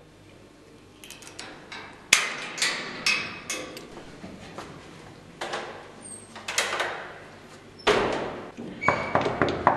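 A padlock being unlocked and a metal door and lattice grille opened: a series of sharp metallic clicks, clanks and knocks, the loudest about two seconds in and another cluster near the end.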